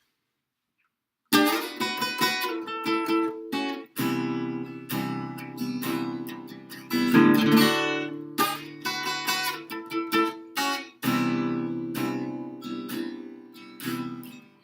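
Acoustic guitar playing a slow intro: chords strummed one after another, each left to ring and fade, starting about a second in.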